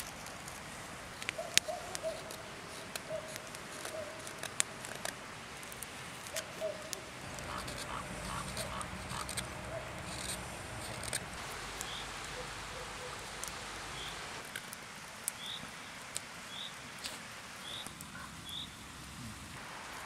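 Knife blade slicing and shaving fresh wood while carving a spoon blank: irregular short cutting clicks and scrapes. A bird calls several short high notes in the second half.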